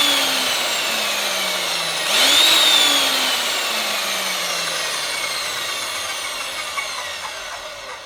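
Electric motor of a diamond concrete core drill, switched on twice: each time the whine rises quickly as the motor spins up, then slowly drops in pitch as it coasts down. These are short start-up runs for checking how much current the machine draws when starting.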